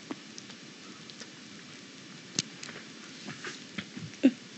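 Faint handling noise: soft rustles and small clicks as the camera and plush toys move over a fluffy blanket, with one sharper click about halfway, over a low steady hiss.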